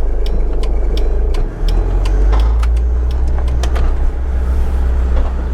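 Van running on the road, heard from inside the cab: a steady low engine and road rumble with many sharp rattling clicks. The rumble shifts in pitch about a second and a half in.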